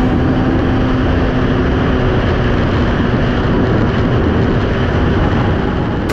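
Snowmobile running steadily at trail speed, with wind rushing over the microphone.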